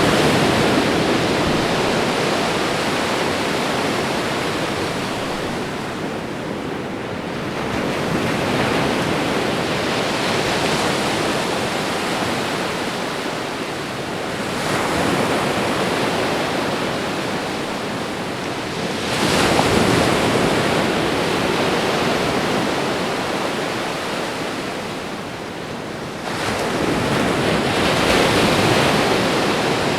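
Ocean waves washing onto a shore in a steady rush, swelling as each wave breaks about every four to six seconds and easing off between them.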